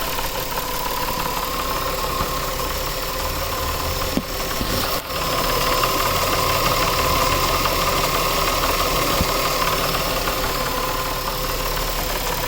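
A warmed-up 2000 Nissan Maxima engine running with a steady grinding, knocking noise that has a high whine-like tone in it, a little louder from about halfway. The owner has ruled out the AC compressor and suspects the timing chain, though he is not certain.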